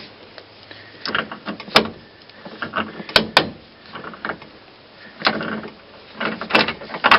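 Clicks, knocks and rattles from hands working on a truck's inner door panel and door handle mechanism, with several sharp clicks among them.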